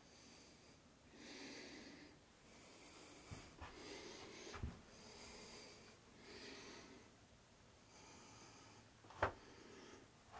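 Faint breathing of the person carrying the camera, slow breaths coming every second or two, with a few soft knocks, the sharpest one near the end.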